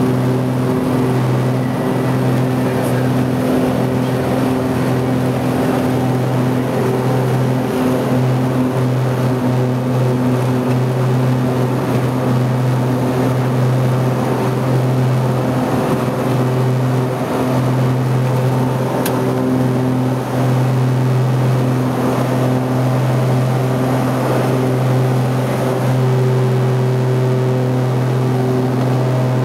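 Propeller engines of a light twin-engine plane heard from inside the cabin during the takeoff run and climb-out: a loud, steady drone with a deep hum and several higher steady tones over rushing noise.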